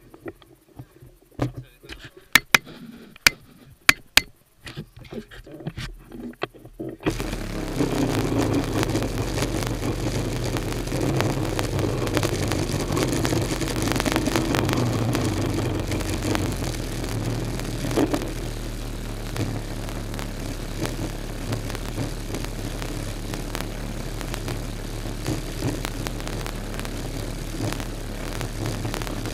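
Sharp clicks of the handlebar camera mount being handled, then about seven seconds in the Kawasaki X2 jet ski's two-stroke engine starts and runs steadily at idle, with a single knock midway.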